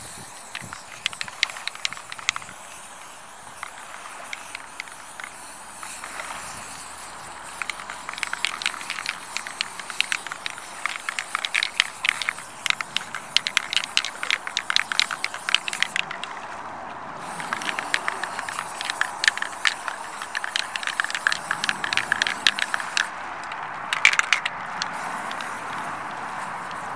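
Aerosol spray paint can spraying black paint: a hiss with dense crackling clicks, stopping briefly twice as the nozzle is released and pressed again.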